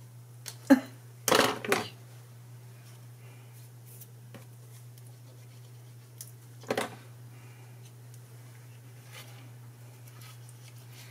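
Small handling noises of paper crafting on a wooden tabletop: a sharp knock about a second in, followed by a short rustle of card, then another knock near the middle, over a low steady hum.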